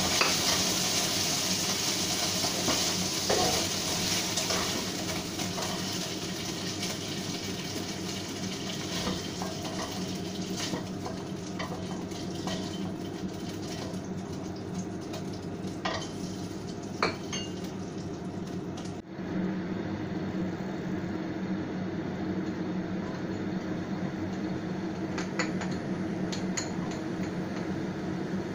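Pork sizzling in a nonstick wok while a spatula scrapes and clinks against the pan, scooping the meat out. The sizzle fades; about two-thirds of the way in the sound changes abruptly and only a steady hum remains, with a few light clinks.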